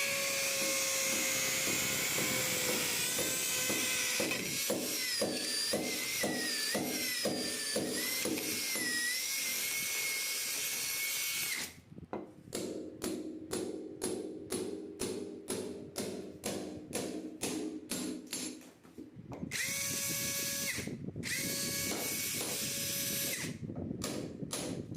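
Dongcheng cordless drill running: a steady motor whine for about twelve seconds, its pitch dipping and wavering as the load changes. This gives way to a run of sharp, even clicks, about three a second, for some seven seconds, then two short bursts of the motor and a few more clicks near the end.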